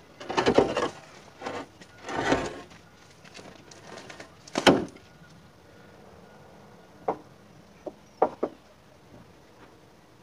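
A 100-kilo precast concrete joist being pivoted and dragged by hand: two grating scrapes, then a sharp knock of concrete as it is set down about four and a half seconds in, followed by a few small clicks.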